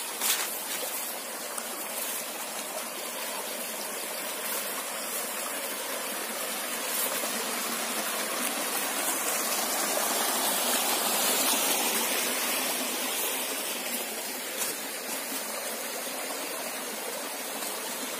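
Shallow muddy stream running over rocks, a steady wash of water that grows louder for a couple of seconds midway, where it spills over a small cascade.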